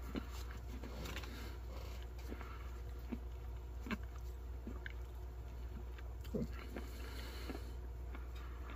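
Small crinkles and soft clicks of a ration wet nap's packet being opened by hand and the moist towelette pulled out and unfolded, over a steady low hum.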